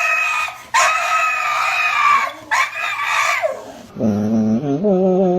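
Animal calls: three long, high-pitched crowing-like calls, each cut off sharply. From about four seconds in comes a lower, drawn-out call whose pitch steps up and down.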